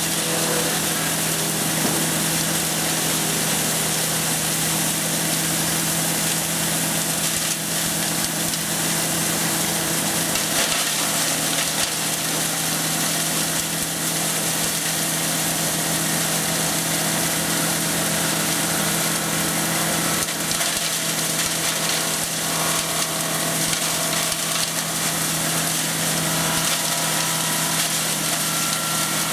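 Wood chipper running at a steady engine speed, with the noise of wood being chipped throughout.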